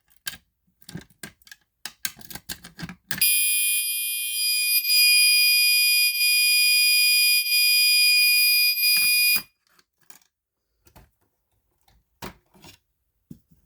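A few clicks and knocks from working the fire alarm pull station, then an electronic fire alarm horn sounds a steady, high-pitched continuous tone for about six seconds and cuts off suddenly.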